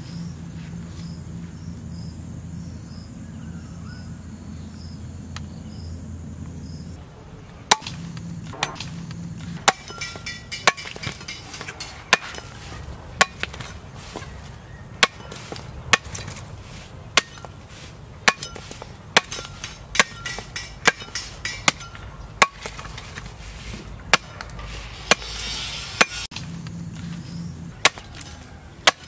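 Heavy 1.2 kg knife, forged from a tractor disc-plough blade, chopping through sugarcane stalks onto a wooden log: sharp chops about once a second, starting about eight seconds in after a steady low hum.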